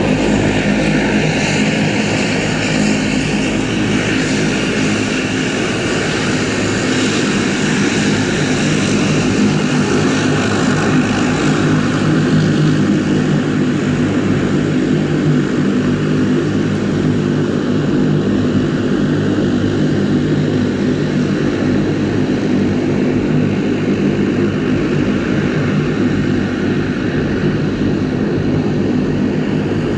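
De Havilland Canada Dash 8-200 turboprop's twin engines and propellers running steadily as it taxis, a loud, even drone of propeller tones with a hiss over it.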